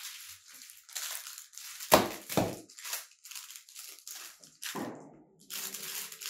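Crinkling and rustling of a small plastic packet being handled and worked open, with packing noise from rummaging in a carton and one sharp knock about two seconds in.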